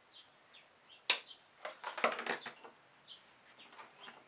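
Hands handling faux-suede cord and a paper mini album on a cutting mat: light rustling, a sharp click about a second in, and a cluster of clicks and taps a second later. A few faint, short, high chirps come in between.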